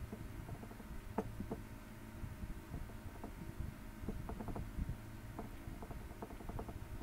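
Light, irregular clicks and taps over a low steady rumble, with no speech.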